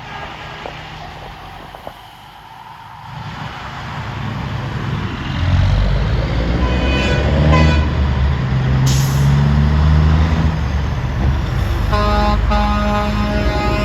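A big truck draws near and passes, its engine growing louder. It sounds its horn about halfway through and again in a run of short toots near the end. A brief sharp hiss of air comes just after the first horn.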